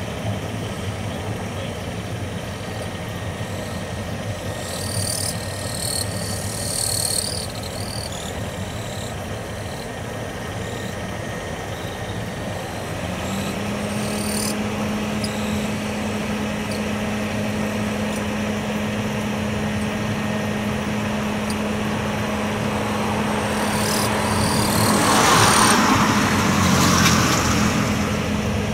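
Boeing 787-8's twin Rolls-Royce Trent 1000 turbofans at take-off power as the airliner accelerates down the runway: a steady jet rumble, with a steady tone joining about halfway through and a louder rushing swell near the end.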